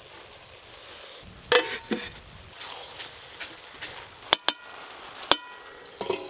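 Metal spatula knocking and scraping in a steel wok while stirring cabbage curry, with a few sharp, ringing metal clinks in the second half.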